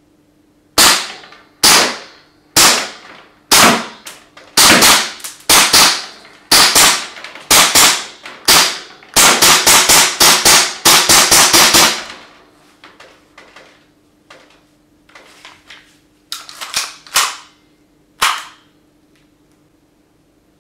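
Tokyo Marui H&K USP gas blowback airsoft pistol firing: sharp shots about one a second at first, then a fast string of around a dozen, then a few fainter clicks and softer shots.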